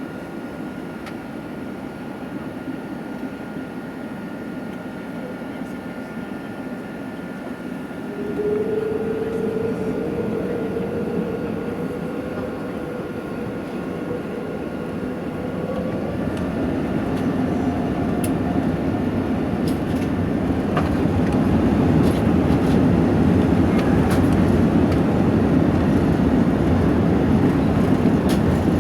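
Airbus A380's engines spooling up for takeoff, heard from inside the cabin: a steady rumble, a tone that comes in and rises slightly about eight seconds in, then the rumble growing louder from about sixteen seconds as the takeoff roll builds.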